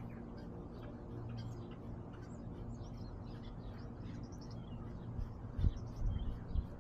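Small birds chirping and twittering in the background over a steady low hum. About five seconds in, low thumps and rustling start as the collar camera worn by a cat moves against its fur.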